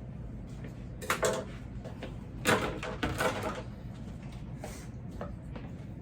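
Two short bouts of kitchen handling noise, clattering and rustling, about a second in and again from about two and a half to three and a half seconds, over a low steady hum.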